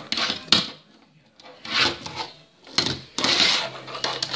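Fingerboard clacking and rattling on a tabletop during repeated ollie attempts: sharp taps as the tail snaps down and the board lands, several times.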